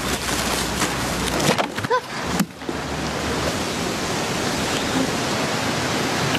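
Steady rushing hiss of a shallow stream running over stones, with a short drop in level about two and a half seconds in.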